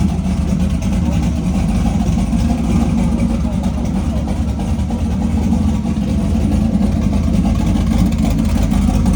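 A vehicle engine running steadily, a continuous low hum with no revving or breaks.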